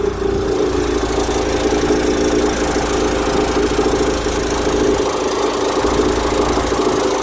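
Mercedes-Benz W169 A180 making the strange noise its owner is asking about: a steady mid-pitched hum with a fast rattling texture, over the running engine.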